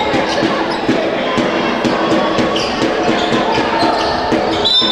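A ball bouncing repeatedly on a sports-hall floor, with shoes squeaking on the court and players' voices.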